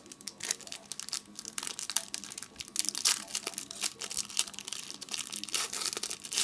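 Foil wrapper of a trading card pack torn open and crinkled by hand, a dense, irregular crackling that peaks about halfway through and again near the end.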